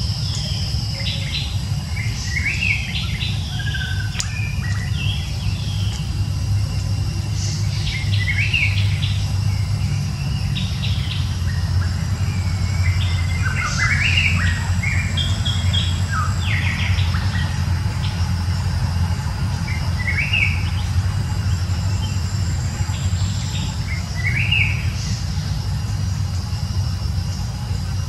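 Small birds chirping, with short rising calls scattered throughout, over a steady low rumble and a faint thin high tone.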